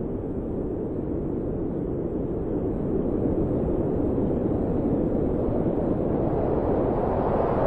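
A sound-effect noise swell: a steady, rushing rumble with no pitch that grows slowly louder and brighter.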